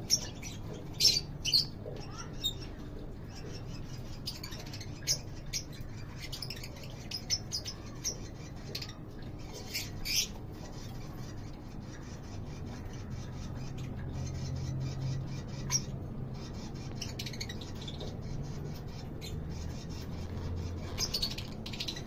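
Lovebirds chirping: short, sharp calls coming every second or few seconds, over a low steady hum.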